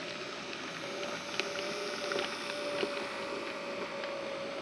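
Bachmann OO gauge Class 08 shunter model setting back across pointwork: its small electric motor gives a steady whine, with light, irregular clicks of the wheels over rail joints and points.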